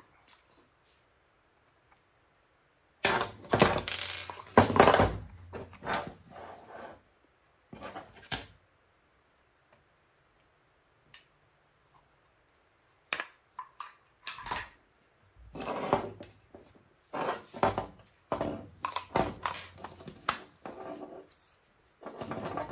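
Handling noise: plastic accessories (a 12V car-socket power adapter with its coiled cord and a 20V battery pack) being picked up, knocked together and set down on a wooden table, in irregular bunches of clatter and knocks with quiet gaps between.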